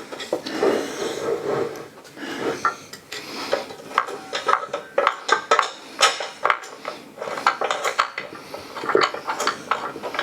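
Metal telescope mount parts clinking and knocking together as they are handled, fitted and lined up: a rapid, irregular run of sharp clicks and taps, some with a brief metallic ring.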